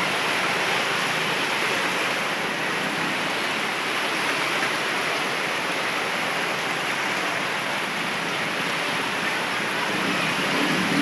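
Heavy rain falling in a steady, even hiss, with water pouring off a roof edge.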